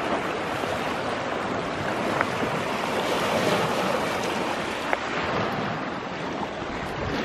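Small lake waves washing and breaking over flat rock ledges at the shoreline, a steady rushing wash that swells a little a few seconds in.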